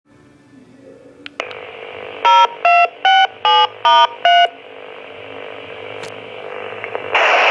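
Six short touch-tone (DTMF) beeps of differing pitch, each a quarter second or so, heard over a radio scanner: a dispatcher's tone-out alerting the fire department to a call. The radio clicks open about a second and a half in, and a loud burst of radio hiss comes in near the end as the dispatcher keys up.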